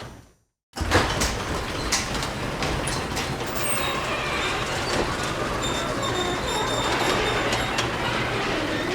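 Garage door moving along its tracks: a steady mechanical rattle with scattered clicks and a faint high squeal in the second half. It starts abruptly after a short gap of silence under a second in.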